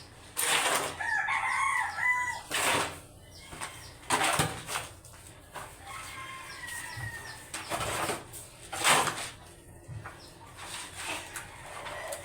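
A rooster crowing about a second in, with a fainter crow around six seconds. Several short, loud rushes of noise come in between; the loudest is near the end.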